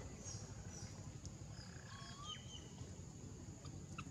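Faint ambience: a few short, high chirping calls, mostly in the middle, over a steady low hum and a thin steady high whine.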